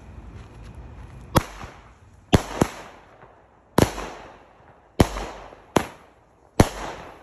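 A ground-launched multi-shot consumer firework firing shots into the air: seven sharp bangs, roughly one a second, two of them close together, each followed by a short fading tail.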